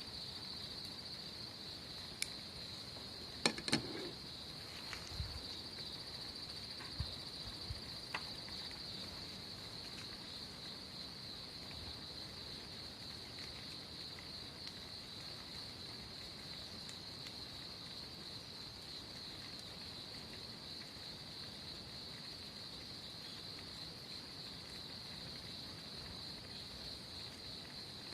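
Steady, high-pitched chirring of insects, crickets or similar, with a fine pulsing texture. A few short clicks and knocks sound in the first eight seconds or so.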